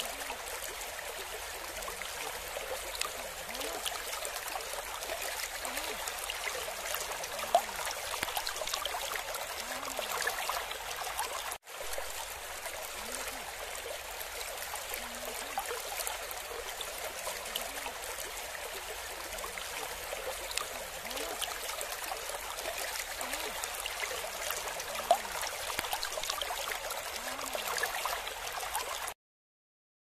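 Steady rush of falling and flowing water, an even hiss with no deep rumble, with a couple of faint sharp ticks. It drops out for an instant about a third of the way in and stops abruptly near the end.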